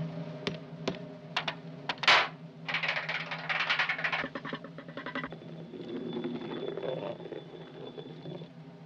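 Cartoon sound effects of a small object clicking and clattering, with a sharp swish about two seconds in and a dense rattle from about three to four seconds in, over a low held orchestral note.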